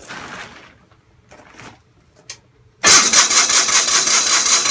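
Onan CCKA two-cylinder engine on a Gravely 450 being cranked by its electric starter, starting suddenly about three seconds in and cranking steadily without catching: a cold start attempt with the choke closed by hand.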